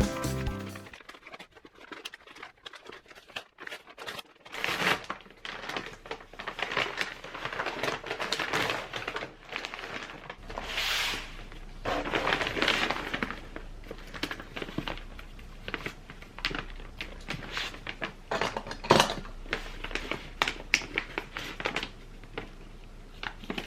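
Close-up handling sounds: irregular crinkling and rustling with small taps and clicks, with a sharp cluster of clicks a little after the middle.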